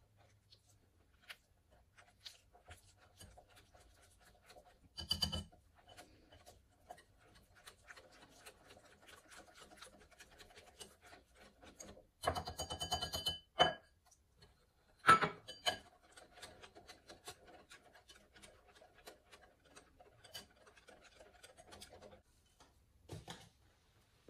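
Wire balloon whisk beating an egg-yolk and cornstarch batter in a glass bowl: a fast, steady patter of wires ticking and scraping against the glass, with a few louder bursts of rapid clinking.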